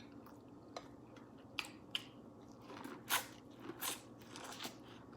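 A person chewing food close to the microphone: wet mouth smacks and short clicks at irregular intervals, a few louder ones around the middle.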